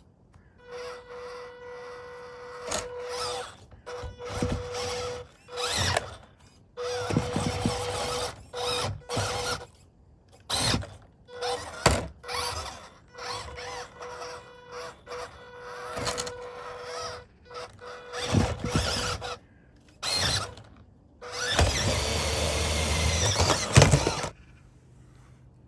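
A small RC off-road car's electric motor and gearbox whining in short stop-start bursts as it is driven over obstacles, with one longer run of about two and a half seconds near the end.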